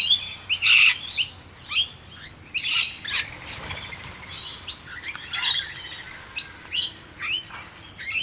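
Many short, sharp chirps and squawks, several a second and overlapping, from a mixed flock of rainbow lorikeets, noisy miners and blue-faced honeyeaters feeding together.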